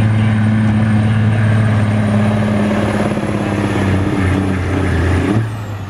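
Peterbilt semi truck's diesel engine running hard at high, steady revs under the load of a weight sled, then letting off about five seconds in. A thin high whistle rides over the engine and slides down as it lets off.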